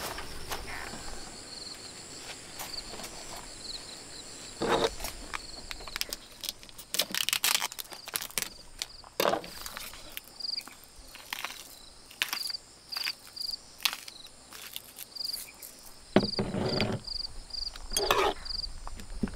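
Crickets chirping steadily in the background, a high even chirping that breaks into short repeated chirps in the second half. Over it, plastic food packaging is rustled and crinkled and items knock on a table in short irregular bursts, loudest at about seven seconds and again near the end.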